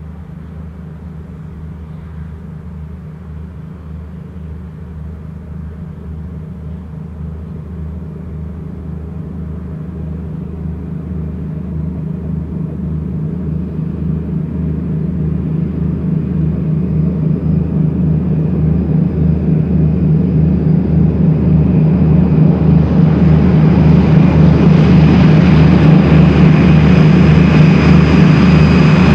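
Two DB class 225 diesel-hydraulic locomotives working hard in multiple, pulling away with a heavy intermodal freight train: a deep, pulsing engine drone growing steadily louder as they approach. A high whine joins the engine sound over the last few seconds.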